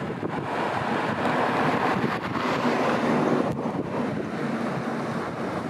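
Wind buffeting the microphone over the wash of sea water along a passing ship's hull, a steady rushing noise that swells about a second in and eases again after about three and a half seconds.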